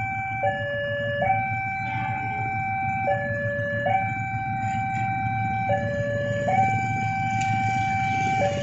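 Railway level-crossing warning alarm sounding: an electronic two-tone signal, a short lower tone followed by a longer higher tone, repeating about every two and a half seconds as a train approaches. A steady low rumble lies beneath it.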